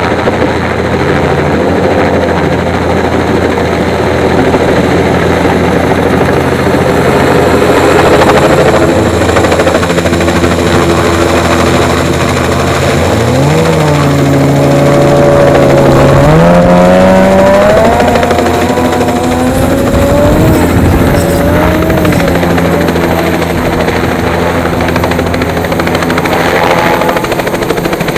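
Helicopter hovering and manoeuvring with a snowmobile slung beneath it on a long line, its rotor and turbine running loudly and steadily. From about halfway through, the engine pitch rises and wavers for several seconds before settling.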